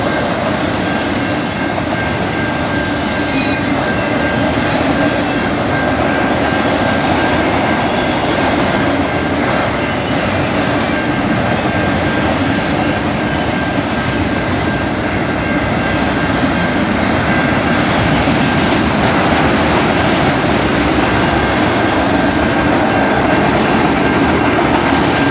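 Freight train of enclosed autorack cars rolling past close by: a loud, steady rumble and rattle of wheels on rail, growing a little louder toward the end, with a steady high tone over it.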